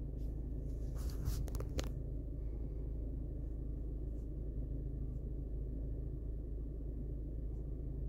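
Car engine idling steadily, heard from inside the cabin, with a few light clicks and rustles about a second in.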